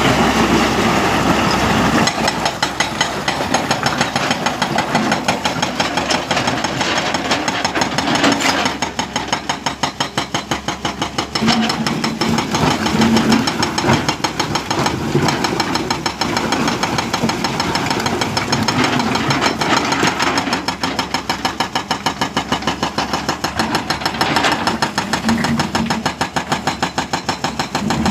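Hydraulic rock breaker on an excavator hammering hard rock, a rapid, steady stream of blows over the excavator's diesel engine running.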